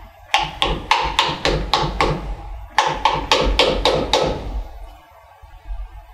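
Rubber mallet tapping a workpiece clamped in a milling-machine vise: two quick runs of about seven or eight taps at roughly four a second with a short pause between, seating the stock down onto the parallels beneath it.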